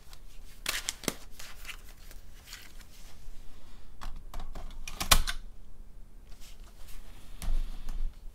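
Irregular sharp clicks and clacks from hands handling the Amiga 1200's keys and floppy disks, the loudest about five seconds in.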